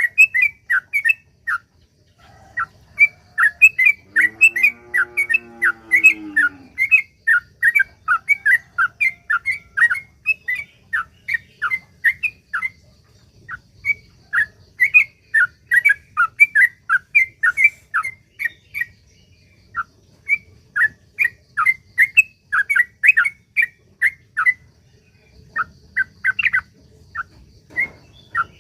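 Sooty-headed bulbul (trucuk) singing a long, fast run of short chirping notes, about three a second, broken by brief pauses. A lower, drawn-out call sounds under the song for a couple of seconds around four seconds in.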